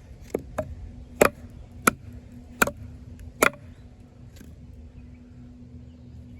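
A wooden baton knocking on the spine of a fixed-blade bowie knife (Off-Grid Caiman XXL, D2 steel) that is wedged in a log being split. There are about six sharp knocks at uneven intervals over the first three and a half seconds, then one faint tap, and then the knocking stops.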